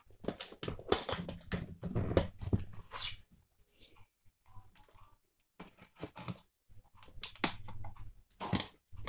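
Hands peeling plastic packing tape off a cardboard printer box and working the lid loose: irregular crackling and scraping in two spells, with a quieter lull in the middle.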